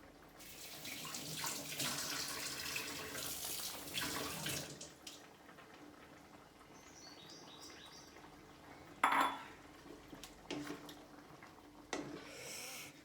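Water running from a tap for about four seconds, followed by a few short clatters of pots and utensils.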